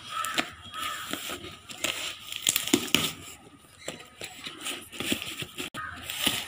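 A knife slitting packing tape and scraping along a cardboard box in irregular scratchy strokes, with cardboard crinkling as the flaps are pulled open near the end.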